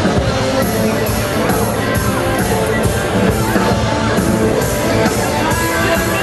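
Rock-style background music with a steady beat and a singing voice.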